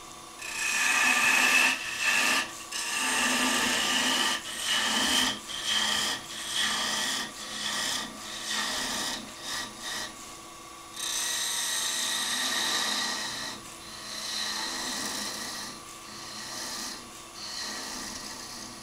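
A small spindle gouge cutting the tip of a wooden finial spinning on a lathe, in a series of short passes. A high whine sounds during the cuts and rises slightly over the longer ones.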